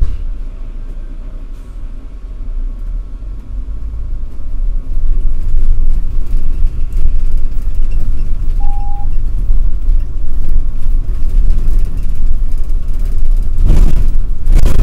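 City bus engine and drivetrain rumbling inside the cabin as the bus pulls away and gathers speed, getting louder over the first few seconds and then running steadily. A single short beep sounds about halfway through, and there are a couple of knocks near the end.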